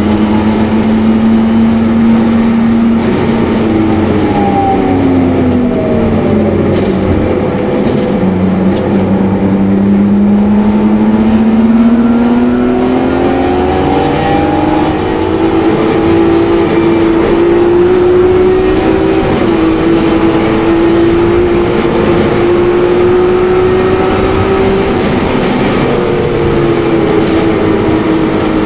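Supercharged BMW E46 M3's straight-six engine at full throttle, heard from inside the cabin. A few seconds in, the note falls as the car brakes and shifts down from sixth gear. It then climbs steadily through the gears, dipping briefly at an upshift near the end.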